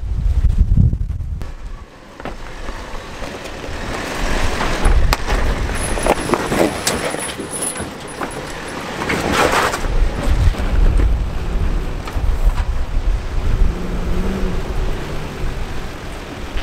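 Strong wind buffeting the microphone over a four-wheel-drive vehicle's engine running, its note rising and falling in the last few seconds.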